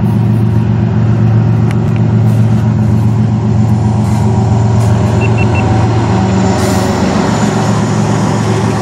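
Two CN diesel-electric freight locomotives, 2981 and 3135, running past close by with a loud, steady, low engine drone. Three short high tones come about five seconds in.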